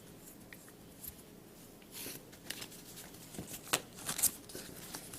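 Ballpoint pen with a medium Parker refill writing on paper: soft, scattered scratchy strokes, with a few sharper clicks and taps about three to four seconds in.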